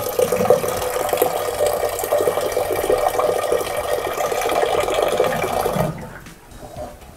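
Kitchen tap water pouring in a steady stream into a pressure-cooker pot of soaked kidney beans, filling it for boiling. The flow cuts off about six seconds in.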